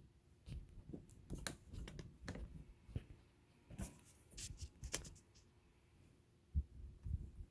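Faint, irregular light clicks and taps, then two dull low thumps near the end.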